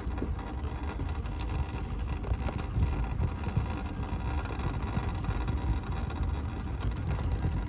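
Mobility scooter travelling along a path, with steady wind noise rumbling on the microphone. A faint steady whine runs underneath, and small clicks come throughout.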